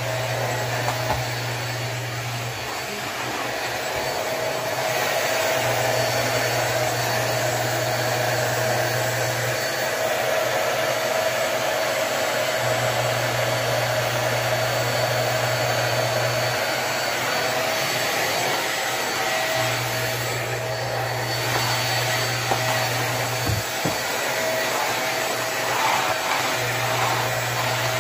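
Corded stick vacuum cleaner running steadily, its motor giving a constant whine over the rush of air.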